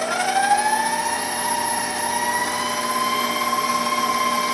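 Stand mixer motor whining as it speeds up to setting 6, the pitch rising over the first two seconds and then holding steady, its wire whisk beating runny powdered-sugar icing in a stainless steel bowl.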